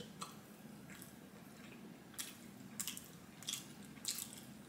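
Someone chewing a soft bread sandwich quietly with their mouth closed. It comes across as a run of short, faint wet clicks and smacks, a little more than one a second, through the second half.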